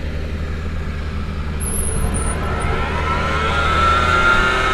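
Tractor engine running as the four-row pneumatic corn planter's air fan spins up: a whine rises from about two seconds in and levels off as the fan builds the air pressure that drops the seeds one at a time.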